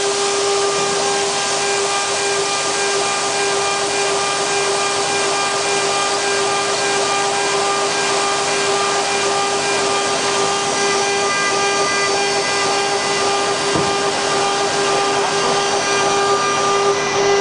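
QS6090 CNC router's spindle running with a steady high whine over a hiss.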